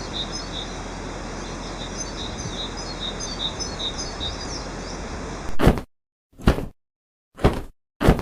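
Small birds chirping over a steady outdoor background noise; about five and a half seconds in it cuts off abruptly, and short sharp thuds follow, about one a second, with silence between them.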